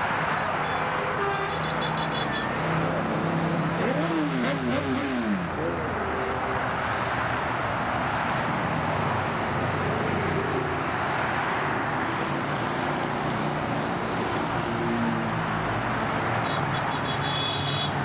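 Motorcycles riding along a motorway: a steady rush of engine and road noise. Around four to five seconds in, a short wavering tone rises and falls.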